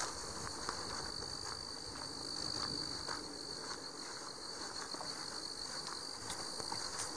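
A steady high-pitched trill held unbroken for about seven seconds, insect-like, over the rustle and soft thumps of someone walking through tall grass.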